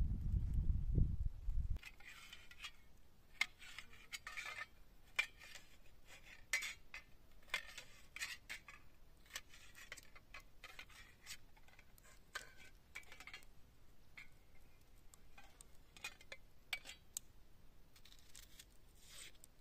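A low rumble for about the first two seconds, then a knife cutting vegetables on a metal camp plate: irregular light clicks and scrapes of the blade against the plate, several a second.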